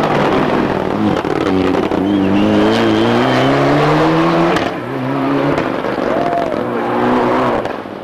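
A Mitsubishi Lancer Evo VII rally car's turbocharged four-cylinder engine accelerating hard. Its pitch climbs, drops at gear changes (one about 4.7 seconds in), then climbs again, and the sound fades near the end.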